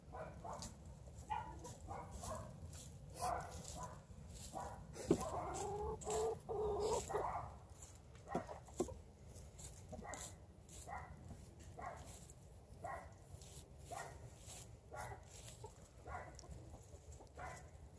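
Female Muscovy duck giving soft, short clucking calls, repeated about once a second in the second half, with straw rustling as she works straw and down into her nest.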